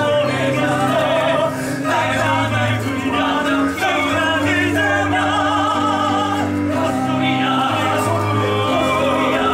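A live musical-theatre song: a singing voice with wavering, drawn-out phrases over band accompaniment with steady held bass notes.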